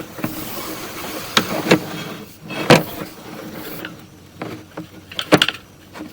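Scattered sharp knocks and clunks of equipment being handled, about five in all. A steady hiss runs through the first two seconds or so and then stops.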